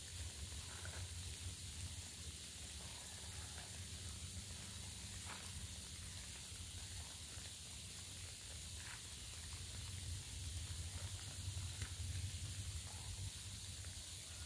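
Faint outdoor background of steady hiss and low hum, with a few soft rustles and crackles as dry leaves and mulch are handled at the foot of a young tree.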